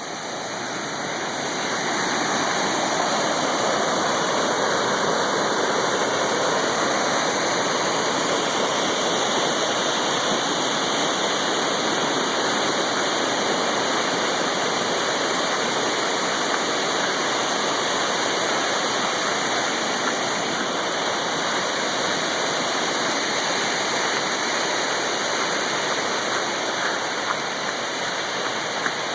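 Flash-flood water rushing down a gulch: a steady, dense rush of water that grows louder over the first couple of seconds and then holds.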